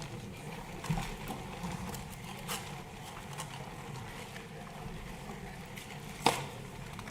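Steady low background rumble and hiss with a few sharp clicks, the loudest about six seconds in.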